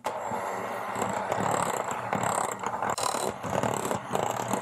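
Electric hand mixer running steadily, its twin wire beaters whipping a thick mascarpone and cream mixture in a glass bowl, with occasional sharp clicks.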